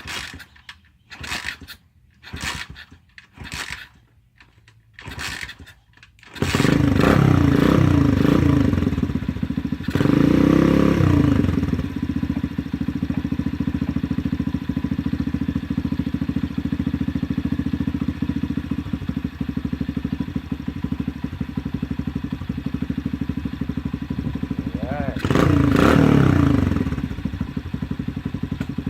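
Freshly rebuilt Loncin 125cc single-cylinder four-stroke dirt bike engine being kick-started: about five kicks, then it catches about six seconds in. It is revved twice and settles into a steady idle through an aftermarket exhaust, with another rev near the end.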